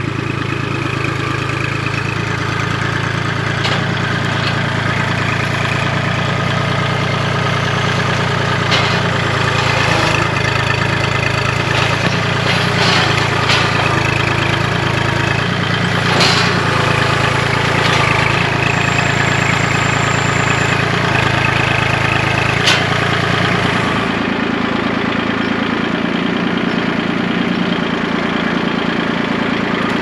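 Kubota compact tractor's diesel engine running steadily close up, with several sharp knocks as the loader works. The engine settles to a lower, steadier note about two thirds of the way through.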